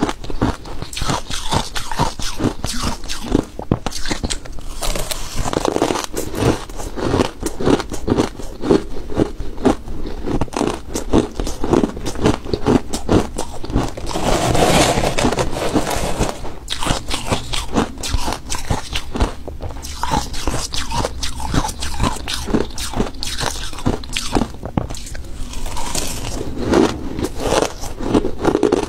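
Ice being bitten and chewed right at the microphone: a continuous, dense run of crisp crunches and cracks, densest about halfway through.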